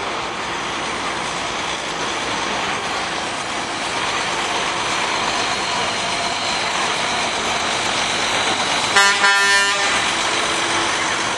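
Old dump truck passing with its engine running, then sounding one horn blast about a second long near the end.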